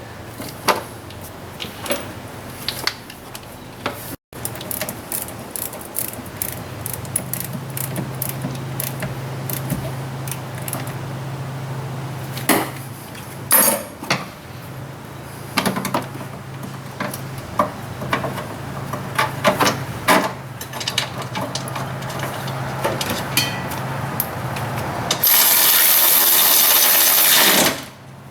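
Scattered clinks and knocks of hand tools at work, over a steady low hum. Near the end a power tool runs loudly for about two and a half seconds.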